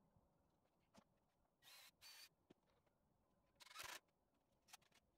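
Near silence, broken by a few faint clicks and short scrapes of a bar clamp being handled on a wooden frame, the loudest about four seconds in.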